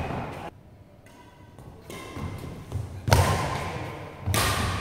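Badminton rally in a large hall: two sharp racket-on-shuttlecock strikes, the first about three seconds in and the second about a second later, each ringing briefly in the hall, over dull thuds of footwork on the court.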